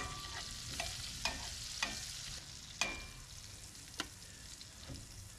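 Butter sizzling steadily in a cast-iron skillet as filet mignon steaks are lifted out with metal tongs. About five sharp clinks of the tongs against the pan and a metal tray, one of them ringing briefly about three seconds in.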